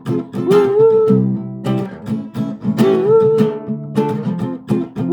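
Instrumental break in a song: strummed acoustic guitar chords with a short melodic phrase that slides up in pitch, repeating about every three seconds.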